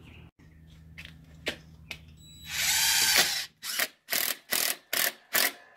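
DeWalt cordless drill driving a one-inch screw through a screen door hinge into the door frame. The motor runs for about a second, then gives five short trigger pulses in quick succession as the screw is snugged down.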